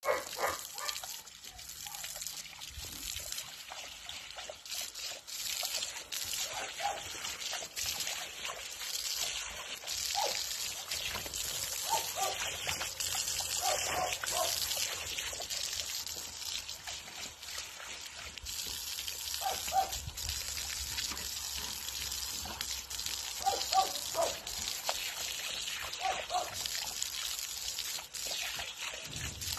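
Water running steadily from an outdoor garden tap and splashing on the ground while a dog drinks from the stream.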